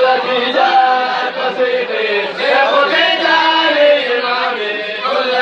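Many men's voices chanting together in a loud, unbroken Muslim devotional chant.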